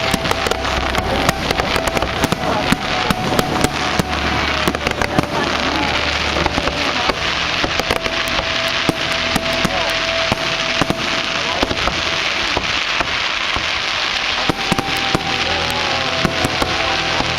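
Fireworks display: a dense, continuous barrage of rapid crackling bangs from exploding shells.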